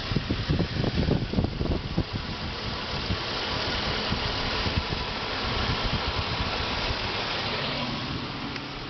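Cabin noise of a 2008 Buick Lucerne CX driving on a wet road: a steady tyre and road hiss, with a burst of uneven low thumps in the first two seconds.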